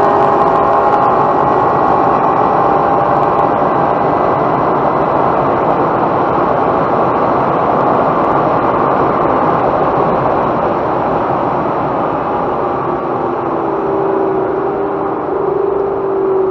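Inside the cabin of a Vauxhall VXR8 V8 rolling down a runway: steady wind and tyre roar that slowly fades as the car slows, with the engine's note heard at the start and again near the end.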